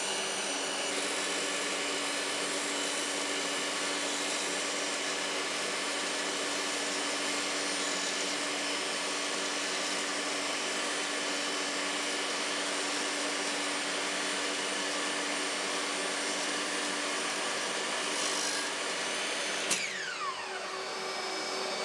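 Bosch GTS 10XC table saw running steadily with its blade raised up through the slot it has just cut in a new zero-clearance insert. The saw is switched off about 20 seconds in, and its whine falls as the blade spins down.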